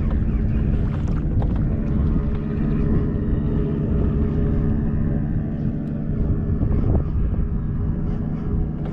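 An engine running steadily with an even, unchanging pitch, heard as a low drone over a strong low rumble.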